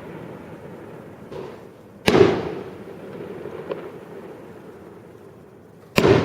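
Fireworks going off: two loud bangs about four seconds apart, the second near the end, with a smaller pop and a crack between them. Each bang is followed by a long echo that fades away.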